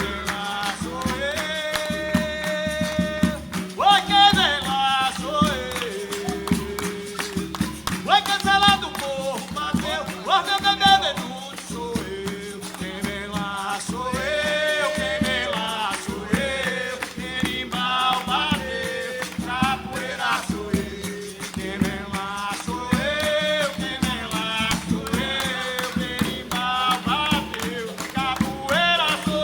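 Capoeira roda music: voices singing over a steady percussion rhythm of clicks and rattles from berimbaus with caxixi shakers.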